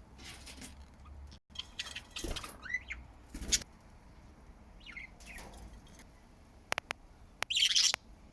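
Pet budgerigars chirping and chattering in short, scattered calls with quick rising and falling pitch, a few sharp clicks, and a loud, harsh burst near the end.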